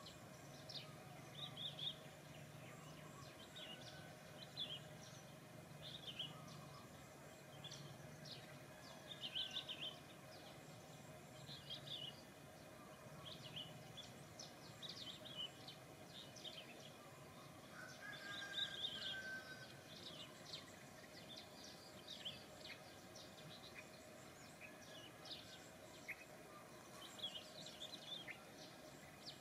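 Faint outdoor ambience: birds chirping, short high chirps every second or two, over a low steady hum.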